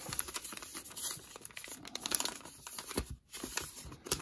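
White packaging bag being handled and pulled open by hand, a run of irregular small crackles with a brief pause about three seconds in.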